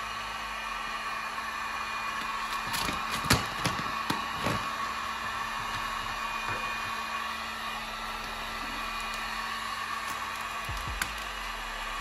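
Electric heat gun running steadily, its fan giving a constant whine and hiss as it blows hot air onto vinyl wrap film to soften it for forming around the fridge door's edge. A few short crackles about three to four seconds in.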